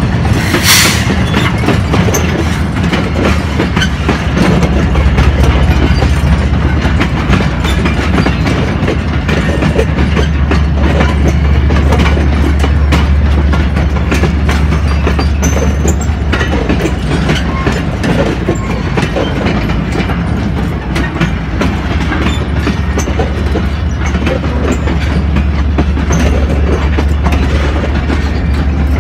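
Freight train oil tank wagons rolling past close by: a steady, loud rolling rumble with repeated knocks of the wheels over the rail joints, and a sharp clank about a second in.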